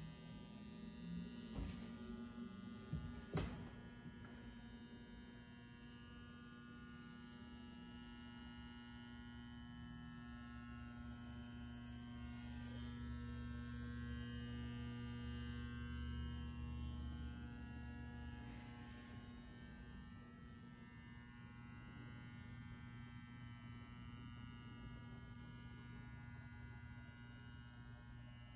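Faint, steady electrical hum made of several fixed tones over a low drone, swelling a little in the middle. Two sharp clicks come about two and three and a half seconds in.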